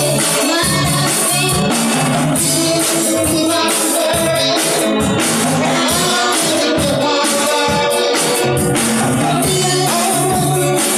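Live rock band playing: a woman sings lead into a microphone over two electric guitars, a bass guitar and a drum kit, with a steady beat.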